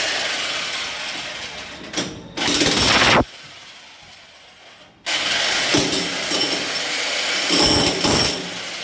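Electric demolition hammer (breaker) chiselling into reinforced cement concrete. It runs, cuts out for about two seconds near the middle, then starts hammering again.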